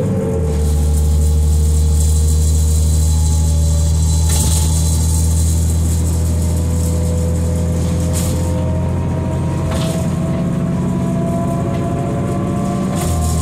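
2005 New Flyer D40LF transit bus heard from inside while under way: its Cummins ISL diesel drones low and a drivetrain whine climbs slowly in pitch as the bus gathers speed. The low drone steps up just after the start and eases again near the end, with a few brief rattles in between.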